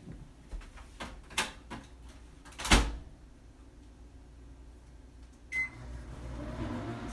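Microwave oven handled: a few clicks, then a loud clunk of the door shutting. A few seconds later a short beep, and the microwave starts running with a steady hum, cooking again.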